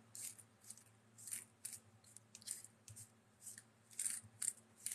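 Round plastic prize tokens clicking and clacking against one another as a hand slides them apart across a tabletop: about a dozen light, irregular clicks.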